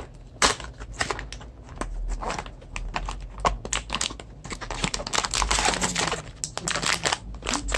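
A foil blind-box bag with a vinyl Dunny figure inside being crinkled and handled close to the microphone for ASMR: a quick, irregular run of crisp clicks and crackles, denser about halfway through.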